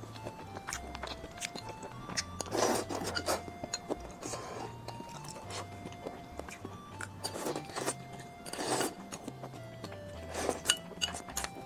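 Close-miked eating: slurps and chewing of noodles and broth from a bowl, in several short bursts, with a sip of soup from the raised bowl near the end. Soft background music with a simple melody of held notes plays throughout.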